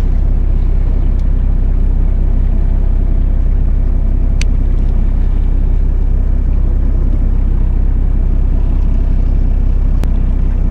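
Fishing boat's engine running with a steady, loud low rumble. Two sharp clicks, one near the middle and one near the end.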